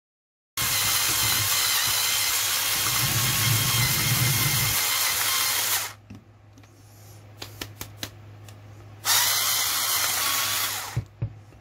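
Electric screwdriver driving a manual burr coffee grinder, its motor whirring steadily as the burrs grind coffee beans. It starts about half a second in and runs about five seconds, stops, with a few clicks, then runs again for about two seconds.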